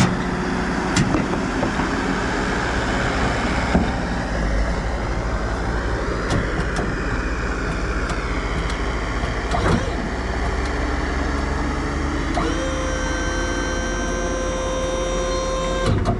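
Farm tractor engine running steadily, with a few sharp clicks and knocks. About three-quarters of the way through, an electric whine rises and holds steady, then cuts off near the end; the driver wonders whether the whine comes from a switch.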